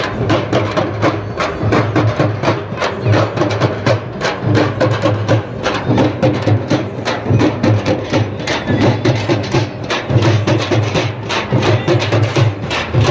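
A street drum band playing large shoulder-slung double-headed drums beaten with sticks: fast, dense, steady drumming.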